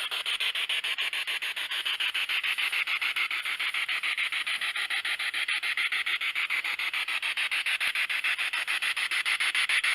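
Spirit box sweeping through radio frequencies: a steady static hiss chopped into rapid, evenly spaced pulses, about ten a second.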